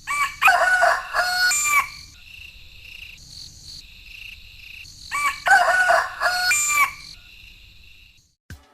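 A rooster crowing twice, each crow about two seconds long, with a steady high insect chirring between the crows.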